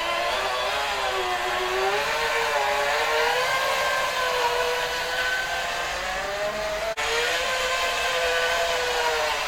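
Whine of an RC construction machine's electric motor, steady but with its pitch wavering up and down as the load changes, and a faint hiss under it. There is a brief break about seven seconds in.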